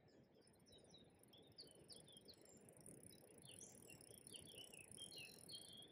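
Faint riverside ambience: a songbird singing a quick run of short chirping notes over a steady high insect buzz, with a low murmur beneath.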